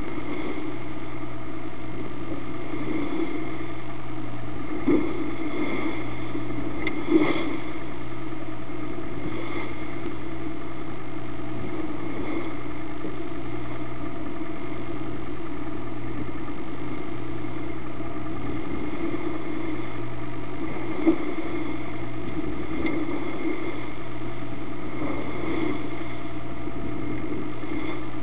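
Motor yacht's engine running steadily under way, a constant drone, with a few short thumps.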